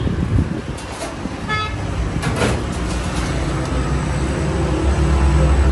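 Street traffic running past, with a short car-horn toot about one and a half seconds in and a vehicle engine rumbling louder toward the end. A few sharp clinks sound over it.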